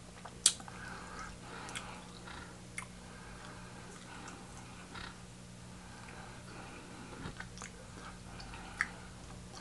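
Quiet room with a faint steady electrical hum and a few light clicks and taps, the sharpest about half a second in.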